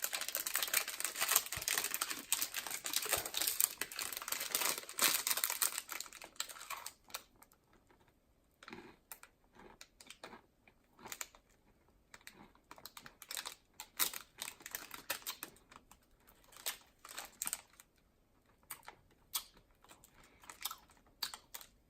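Crunchy granola bar being bitten and chewed close to the microphone: dense crackling crunches for about the first seven seconds, then thinning to scattered separate crunches.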